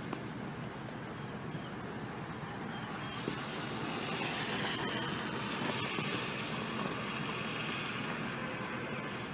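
Steady rushing outdoor noise that swells into a louder hiss from about four seconds in and eases off near the end.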